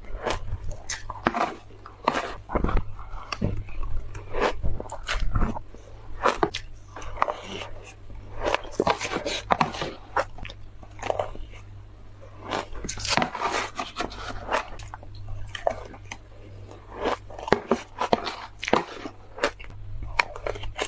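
Close-up chewing and crunching of matcha shaved ice: a quick, irregular run of crisp bites and crunches of icy flakes between the teeth.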